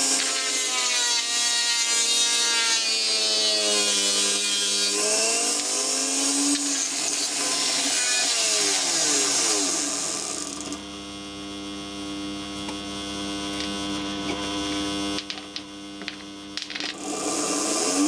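Small brushed motor running overdriven, its whine falling and rising in pitch several times as it is loaded, then running steadier and quieter. A burst of crackling near the end, from the brushes sparking across a damaged commutator and winding.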